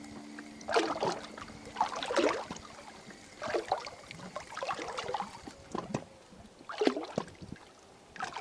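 Small waves lapping and splashing against the hull of an inflatable fishing pontoon boat, a soft splash every second or so at uneven intervals.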